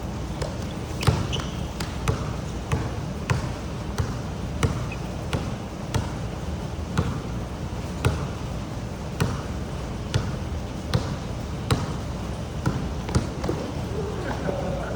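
Sharp knocks repeating steadily about one and a half to two times a second over a constant rushing background noise.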